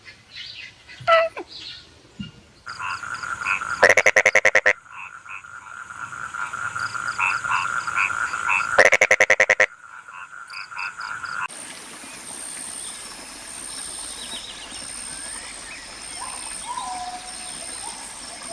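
A chorus of calling animals: a steady trilling background, with two loud, rapid rattling calls about five seconds apart. About 11 seconds in it changes to a thinner chorus of steady high-pitched calls.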